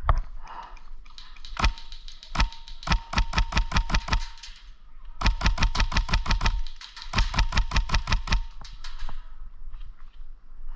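Airsoft guns firing: a few single shots, then three rapid full-auto bursts of about eight to ten shots a second, the last ending about a second and a half before the end.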